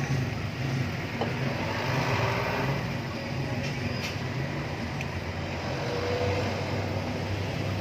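Steady low drone of a running engine in the background, with a few faint metallic clicks as a new brake pad is set into the caliper bracket.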